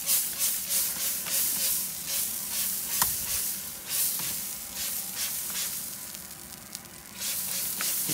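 Rapid squirts of water from a hand spray bottle onto chicken on a hot grill grate, about two or three hissing, sizzling bursts a second, easing off for a couple of seconds near the end before starting again. The water is sprayed so the chicken doesn't dry out as it grills at about 350 degrees.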